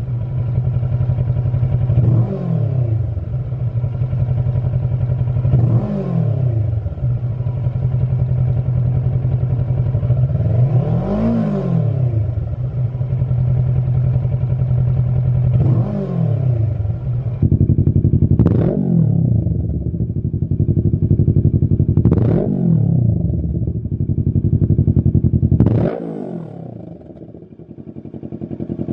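Kawasaki Versys 650's parallel-twin engine idling with repeated short throttle blips, the pitch rising and falling each time. The first blips are through the stock silencer. After an abrupt change about two-thirds of the way through, three more blips are heard through a Lextek XP10 aftermarket silencer. Loudness dips briefly near the end.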